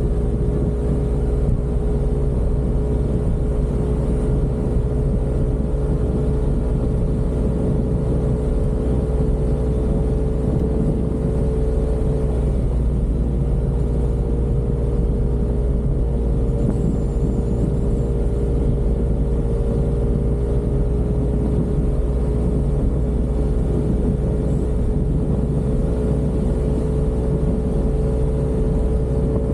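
Yamaha Aerox 155 scooter's 155 cc single-cylinder engine running at a steady cruising speed. It holds a nearly constant note over a strong, even low rumble.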